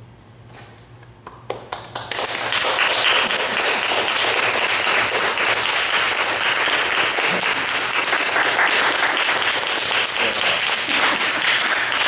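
Audience applauding. A few scattered claps come about a second and a half in, then the whole room breaks into steady applause from about two seconds on.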